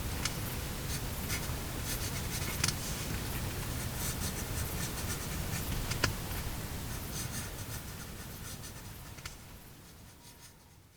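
Rustling and scratching close to the microphone, with scattered small clicks over a low rumble. It fades out near the end.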